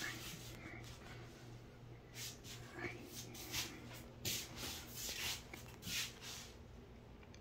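Irregular rubbing and rustling noises, about eight short scrapes at uneven intervals, over a steady low hum.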